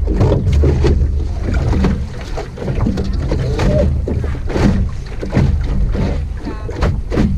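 Wind rumbling on the microphone aboard an Optimist sailing dinghy under way, with water slapping against the hull and scattered sharp knocks from the boat.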